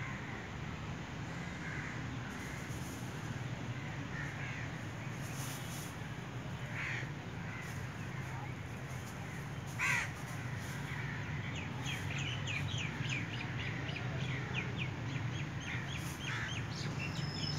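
Birds calling outdoors: scattered short calls, the loudest about ten seconds in, then a quick run of short chirps near the end, over a steady low hum.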